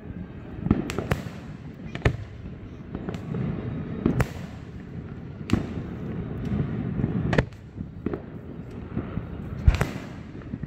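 Fireworks display: a string of sharp bangs from shells bursting, one every second or two, over a steady low rumble, with the loudest bang near the end.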